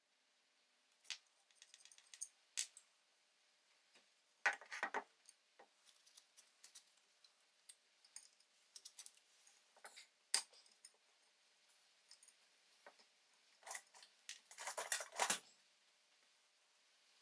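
Light metallic clicks and clinks of a small spanner and the blowtorch's steel pipe fittings being handled on a wooden bench, with two short rattling clusters, one about four and a half seconds in and one near the end.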